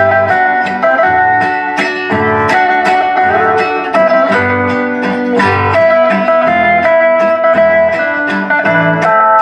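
Two acoustic guitars playing an instrumental passage together, a steady strummed rhythm under picked melody notes.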